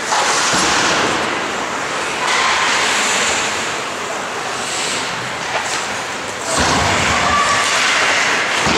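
Ice hockey play in a rink: a steady wash of skate blades on the ice with a few knocks of sticks and puck, and faint shouts from players.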